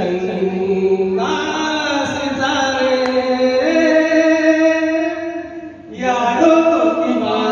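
A group of people singing together in long, drawn-out notes, with a brief break about six seconds in before the singing picks up again.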